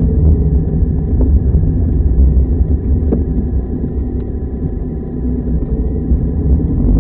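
Car's engine and tyre noise heard from inside the cabin as a steady low rumble, easing a little midway and picking up again near the end.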